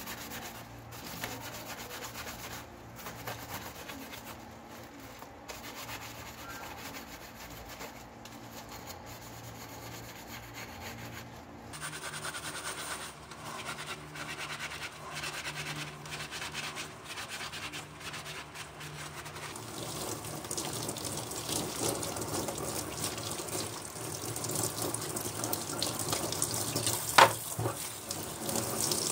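Gloved hands scrubbing a soapy brass clock part, a wet rubbing and squelching, then a water tap running and splashing over it from about two-thirds of the way in, growing louder. A single sharp knock near the end.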